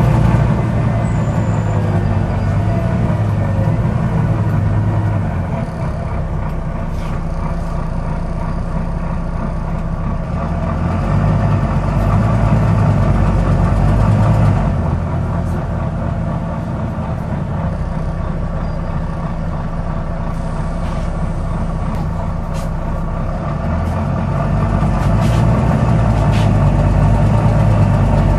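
Volvo B9TL double-decker bus's diesel engine running, easing off and picking up again, with a few sharp clicks heard now and then; this is the clicking noise the bus has.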